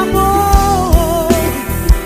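Music: a melody line with held, gliding notes over a steady drum beat.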